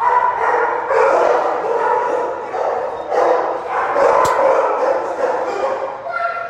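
Several shelter dogs barking and yipping at once in their kennels, a continuous overlapping din with no pauses. A single sharp click cuts through about four seconds in.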